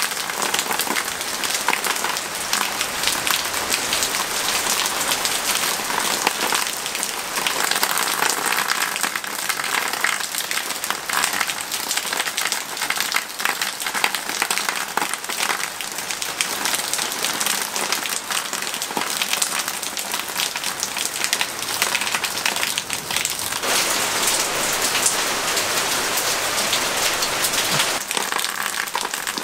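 Downpour of rain: a dense, steady hiss full of the fine ticks of single drops striking, its character shifting a few times.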